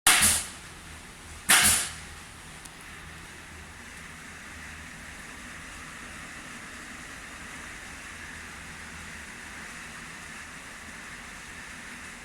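Pantograph engraving machine running with a steady hum from its motor, after two brief loud noises at the start, about a second and a half apart.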